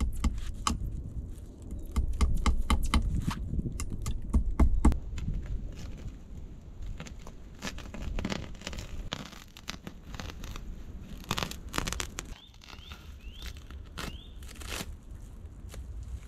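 Plastic stretch wrap being cut and torn with a knife, crackling and crinkling in quick irregular bursts. A low rumble runs under the first few seconds.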